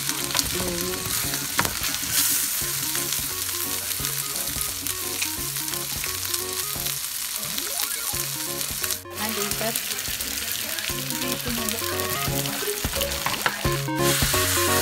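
Rice and seafood sizzling as they fry in oil in a paella pan, stirred and scraped with a plastic spatula, with soft background music underneath. Near the end the sizzle softens as broth covers the rice.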